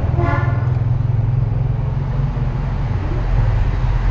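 Steady, loud low mechanical hum.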